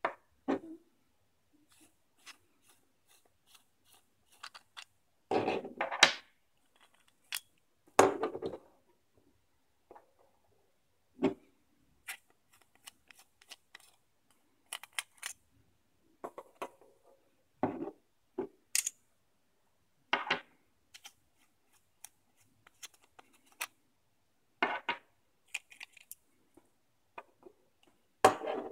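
Aluminium flashlight bodies being unscrewed and handled: scattered clicks, taps and short scrapes of metal threads and parts, and pieces set down on a tabletop, the loudest scrapes about six and eight seconds in.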